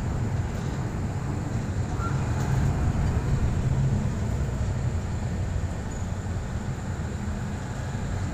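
Kanto Railway KiHa 310 series diesel railcar running, heard from inside the car: a steady low rumble of the diesel engine and running gear. It swells a little about three seconds in and eases off after about five.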